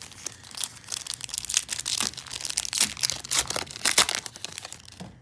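Crinkling and tearing of a plastic trading-card pack wrapper as it is ripped open and handled, a dense run of irregular crackles.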